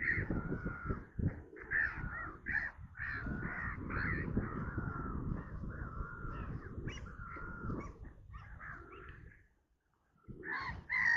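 A flock of birds calling over and over with harsh, drawn-out cries, several overlapping, with a low rumble underneath. The calls break off briefly about nine and a half seconds in, then start again.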